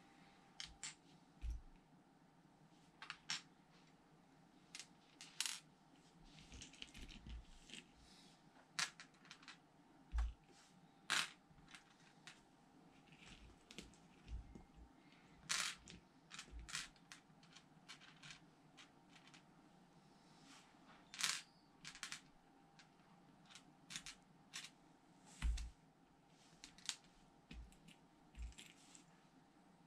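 LEGO plastic pieces clicking and clattering as they are picked from a pile and pressed together, in scattered sharp clicks at irregular intervals, with a few low knocks.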